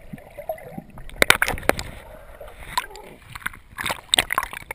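Water splashing and gurgling around a swimmer's handheld camera, first underwater and then at the surface of choppy sea. There is a quick cluster of sharp splashes about a second in, and more splashing near the end as the camera breaks the surface.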